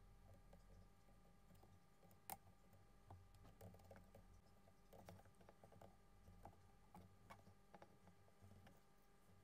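Near silence: room tone with faint, scattered small clicks and taps as a soldering iron and pliers work at wire joints on a drone's circuit board; the loudest click comes about two seconds in.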